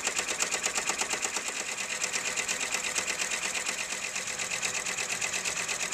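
Six-needle Brother Entrepreneur embroidery machine stitching satin columns of a tension test, a rapid, even run of needle strokes at a steady pace.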